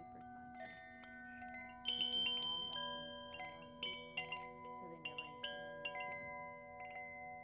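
Chimes ringing: scattered metallic strikes that each ring on and overlap, over a faint steady low hum. A loud flurry of high, bright strikes comes about two seconds in.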